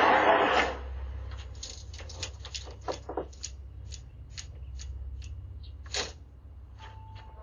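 Irregular light clicks and taps over a steady low hum, with one louder click about six seconds in, after a brief rush of noise that stops under a second in.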